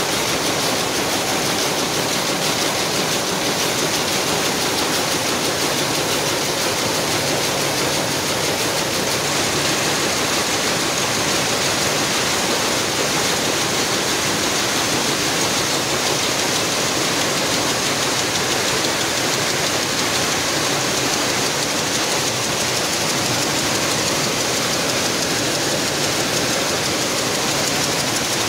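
Many Picanol GTX rapier looms running together on a weaving-mill floor: a dense, steady mechanical clatter.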